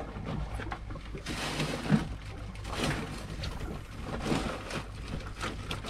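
Water slapping and washing against a fishing boat's hull in irregular surges, over a steady low hum, with a single sharp knock about two seconds in.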